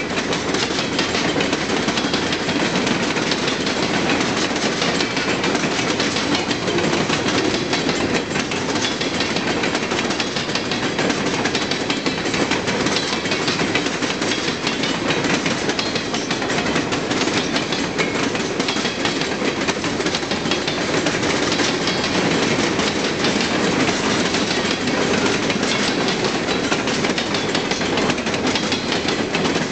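Empty coal hopper cars of a freight train rolling past at steady speed, their steel wheels clattering steadily on the rails with a continuous run of fine clicks.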